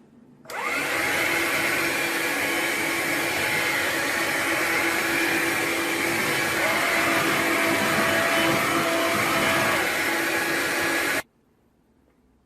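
Hoover Linx cordless 18-volt stick vacuum switched on about half a second in and running steadily with a whine as it picks up spilled coffee grounds. A second, higher tone joins for a few seconds past the middle, and the vacuum is switched off about a second before the end.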